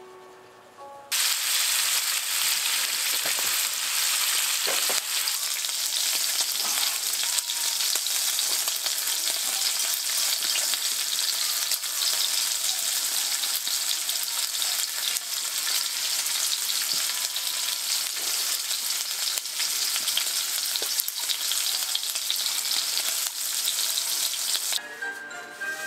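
Pieces of meat sizzling on a grill pan over a portable gas burner: a steady, loud frying hiss that starts about a second in and cuts off near the end, with a few faint clicks through it.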